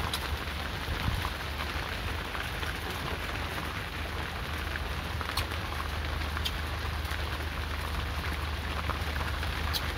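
Steady rain falling, with a few sharp ticks and a steady low hum underneath.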